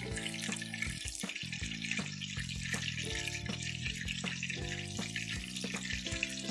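Battered fish pieces deep-frying in a skillet of hot oil: a steady, dense crackling sizzle. Background music of held notes that change every half second or so runs underneath.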